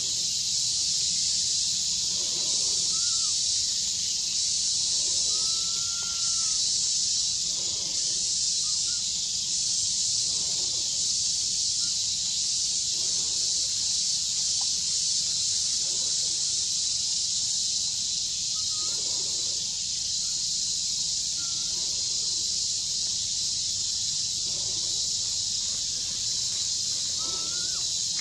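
Steady, high-pitched drone of insects filling the forest. A few faint, short chirping calls are heard over it.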